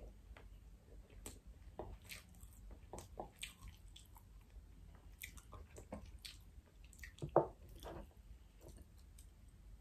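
Close-miked chewing of rice and pan-seared salmon: soft, wet mouth sounds and smacks, with scattered light clicks and one louder click a little past seven seconds in.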